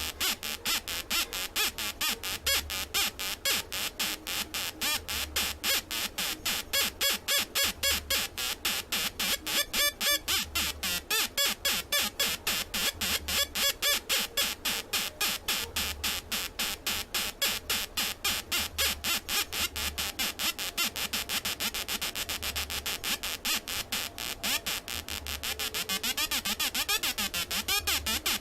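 Atari Punk Console, a home-built square-wave synthesizer circuit, making a harsh, buzzy electronic tone that pulses about three times a second.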